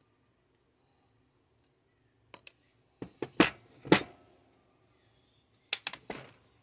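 Metal knocks and clinks of a chainsaw's bare engine, its finned cylinder and crankcase, being handled and set down on a workbench. The sounds come as short separate strikes, one about two seconds in, the loudest a few strokes around three and a half to four seconds, and a quick cluster near the end.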